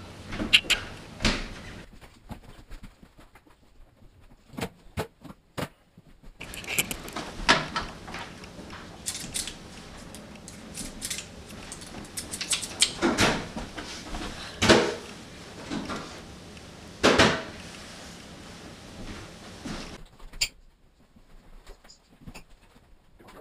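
Scattered knocks, clicks and clatter of things being handled and moved about in a room, with a quick run of sharp knocks about five seconds in and the loudest bangs around thirteen, fifteen and seventeen seconds in.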